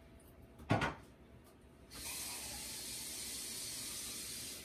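A single knock, then water running from a tap in a steady hiss that starts about two seconds in and shuts off just before the end.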